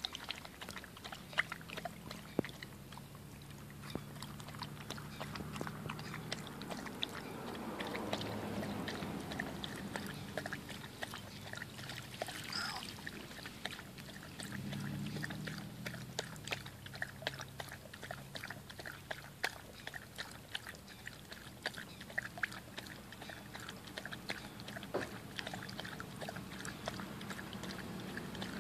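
Siberian husky puppy lapping water from a plastic bowl in a rapid, continuous run of wet laps and splashes, with water from a garden hose running into the bowl.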